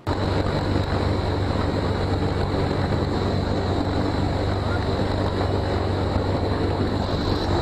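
Loud, steady cabin noise inside a helicopter with its rear ramp open: a deep drone of rotor and engines under rushing air, with a constant high whine. It starts suddenly at a cut and holds steady throughout.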